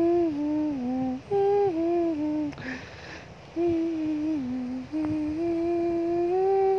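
A wordless tune hummed in four short phrases, each stepping down through a few held notes, the last phrase rising and holding. A brief breathy hiss falls in the gap between the second and third phrases.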